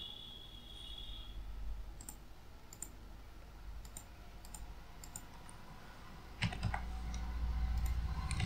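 Computer keyboard and mouse clicks, light and scattered, as a web form is filled in. A low rumble comes in about two-thirds of the way through and grows louder.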